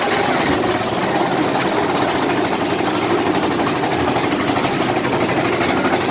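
Mine-train roller coaster running along its track: a steady rattle and rush from the cars and the wind.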